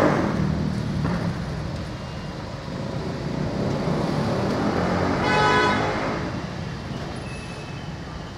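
Road traffic with vehicle engines running as a steady low rumble, and a horn honking once, briefly, about five seconds in.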